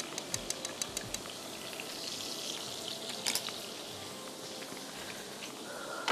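Thick yogurt kadhi being ladled out of a pan and poured, with a quick run of light utensil clicks against the pan in the first second and a few more clicks around three seconds in.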